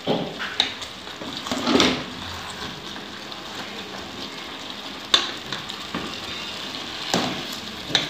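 Chicken stew sizzling and bubbling in a large aluminium pot on a gas stove while a wooden spoon stirs it, with a few short knocks and scrapes of the spoon against the pot.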